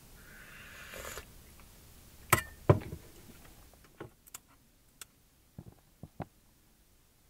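Wooden chopsticks knocking and clicking against a metal bowl of rice while eating: two sharp knocks about two and a half seconds in, the first with a brief metallic ring, then a scatter of lighter clicks.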